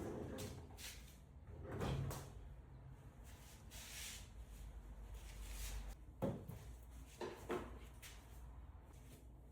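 Tool chest drawers sliding open and shut, with a few sharp knocks as they close.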